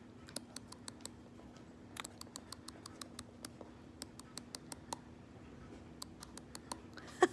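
Irregular run of sharp, light clicks, several a second in clusters, over a faint steady low hum.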